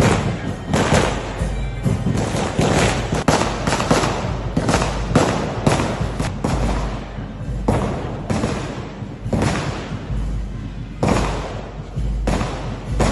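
A run of loud bangs, roughly two a second and unevenly spaced, over a low rumble.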